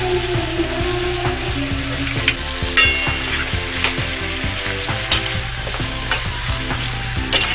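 Chicken pieces sizzling in oil in a frying pan while a spatula stirs them, with a few sharp scrapes of the spatula against the pan.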